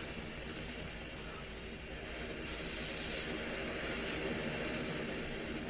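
Consumer firework fountain burning with a faint, steady hiss. About two and a half seconds in, a single high whistle sounds for under a second, falling slightly in pitch.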